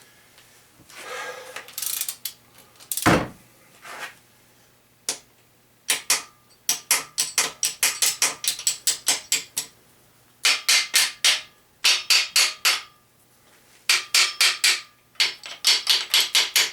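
Hammer tapping on engine parts during a short-block teardown, in quick runs of sharp strikes several a second, with a heavier single thud about three seconds in.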